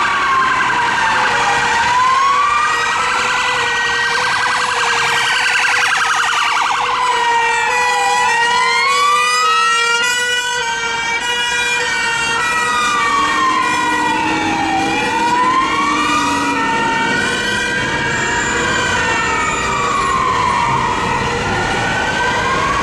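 Emergency sirens on a responding St John Ambulance Mercedes-Benz Sprinter and British Transport Police Ford S-MAX: a slow wail rising and falling, one full cycle about every six to seven seconds. A second, faster-sweeping siren overlaps it for several seconds around the middle.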